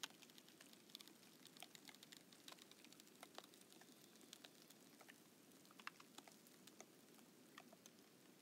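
Thawing lake ice crackling as it shifts with a slight breeze: many faint, irregular clicks and ticks, thickest in the first few seconds, over a low steady hiss.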